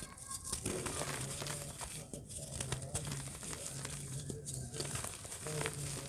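Hands crumbling clumps of dry dirt, a dense gritty crackle of many small cracks and crunches as the crumbs and dust trickle down onto a dirt pile.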